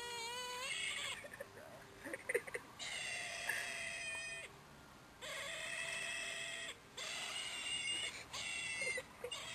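A tame young raptor calling over and over with long, thin, wailing cries, each a second or so long, with short pauses between.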